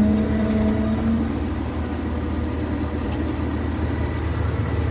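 Liebherr bulldozer's engine running steadily, heard from inside the operator's cab, with a steady whine that stops about a second in.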